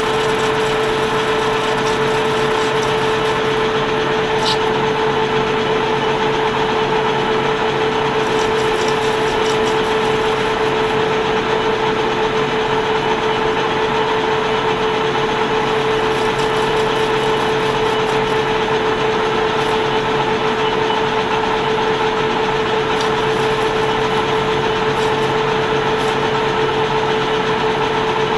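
Metal lathe running steadily while brass hex stock is turned, a constant machine hum with a steady whine.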